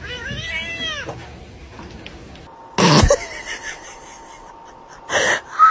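A cat gives one long meow that rises and falls in pitch, its mouth open wide at a hand reaching toward it. About three seconds in there is a short, loud burst of noise, and two more sharp noises come near the end.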